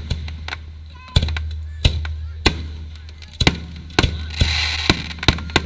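Fireworks bursting overhead in rapid, irregular bangs, a dozen or more, over a steady low rumble, with a short spell of hissing crackle about four and a half seconds in.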